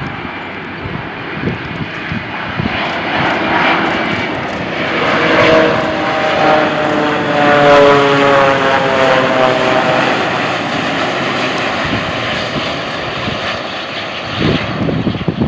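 Boeing 787 Dreamliner jet engines on landing approach, flying low past. The sound swells to its loudest about halfway through, with a whine falling in pitch as the aircraft goes by, then eases off.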